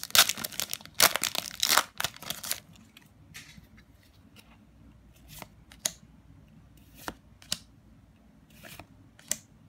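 Foil booster-pack wrapper of trading cards being torn open and crinkled for the first two and a half seconds. Then come a few short, soft snaps and clicks as the cards are flicked through by hand one at a time.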